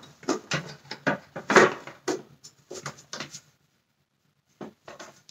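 Hard plastic parts of a Dyson Cinetic Big Ball vacuum cleaner being handled: a run of irregular knocks and rattles, the loudest about a second and a half in, then it goes quiet apart from a few light clicks near the end.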